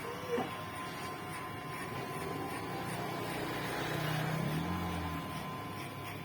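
Kemei 1986 electric hair clipper buzzing steadily while cutting hair; its hum grows louder and shifts in pitch for about a second, four seconds in.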